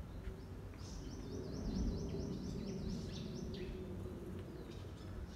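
Distant jet airliner overhead, the CFM56 engines of a Boeing 737-900ER: a low noise that swells slightly and eases off. Over it a small bird gives a rapid run of high chirps for about two seconds.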